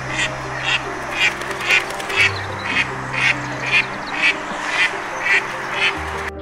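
Duck quacking over and over at an even pace, about two quacks a second, with background music.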